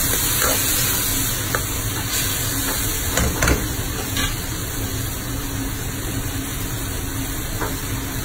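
Salted anchovies (ginamos) with tomatoes and garlic sizzling in oil and liquid in a metal wok, a steady frying hiss. A few light clicks about three seconds in.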